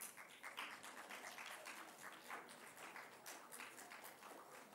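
Faint audience applause, many hands clapping irregularly.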